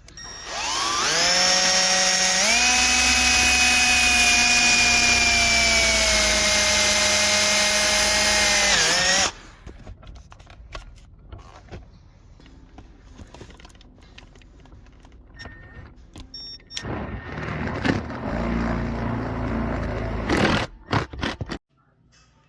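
Power drill running for about nine seconds, speeding up in two steps and then slowing slightly under load as it bores a hole, then stopping suddenly. Light clicks and handling noise follow, then a second, shorter drill run near the end.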